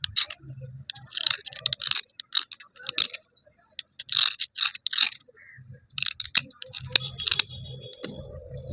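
Broken slate pencil pieces rubbed and knocked together dry, giving irregular gritty scraping crunches and light clinks a few times a second.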